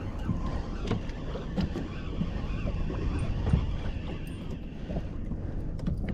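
Wind buffeting the microphone aboard a fishing boat at sea, with a steady low rumble of wind and water and a few light knocks.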